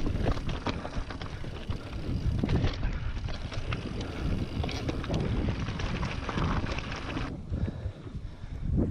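Mountain bike riding fast over a loose, rocky trail: tyres rolling over stones and the bike rattling, under heavy wind rumble on the action camera's microphone. About seven seconds in the clatter drops away as the bike reaches smoother dirt, leaving mostly wind rumble.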